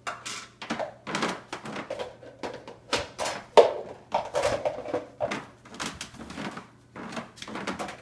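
Plastic food containers being set face down into a dishwasher's wire top rack: a run of light knocks and clatters, the loudest about three and a half seconds in.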